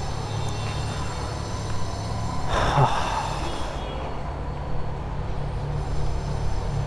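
Kawasaki Z900's inline-four engine idling steadily, with a brief louder noise about two and a half seconds in.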